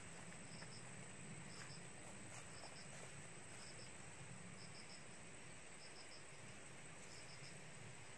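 Crickets chirping faintly, in short high chirps of three or four pulses repeating about once a second, over a steady thin high-pitched tone.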